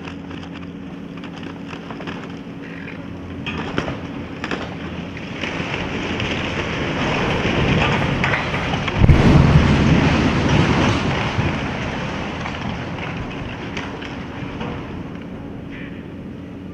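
Wooden grain elevator collapsing: sharp cracks of breaking timber about four seconds in, then a rising rumble that peaks in a heavy crash about nine seconds in and dies away over several seconds. A steady low engine hum runs underneath.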